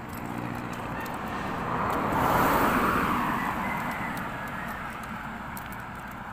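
A road vehicle passing close by, its engine and tyre noise swelling to a peak about two and a half seconds in and then fading, over steady traffic noise.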